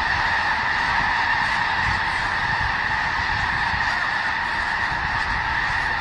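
A large flock of snow geese calling all at once, a dense steady din of overlapping honks with no single call standing out.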